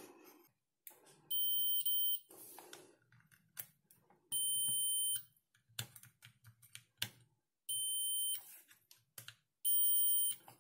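Digital multimeter's continuity buzzer beeping four times, each short steady beep sounding as the probes touch the legs of the battery charge board's power MOSFETs, with small clicks of the probe tips between. The beeps show the transistors conducting straight through: they are shorted.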